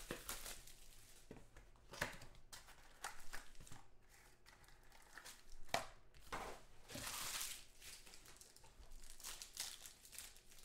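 Foil trading-card pack wrappers crinkling and being torn open by hand, in several short rustles and rips, with a longer tear about seven seconds in.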